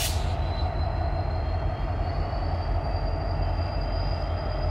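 Norfolk Southern freight train pulling away, its diesel locomotives passing with a steady deep rumble. A thin high whine rises slowly in pitch throughout.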